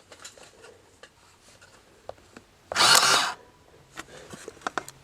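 Canon P1-DHV desktop printing calculator: a few light key clicks, then its motor-driven print mechanism buzzes briefly once, a fast rattle of about half a second, followed by more clicks.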